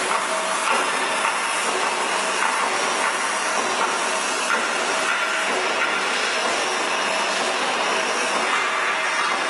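Heavy machinery running, with a steady dense hiss and faint whining tones.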